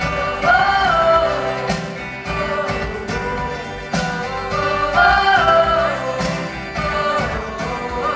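Live band performing an acoustic pop song. Held sung notes slide between pitches over the accompaniment, with a sharp beat roughly every two seconds.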